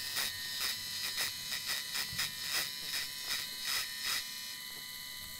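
Lathe turning POM stock, played back sped up twenty-fold: a high, dense buzz with a regular pulsing of about three beats a second that settles to a steadier buzz near the end.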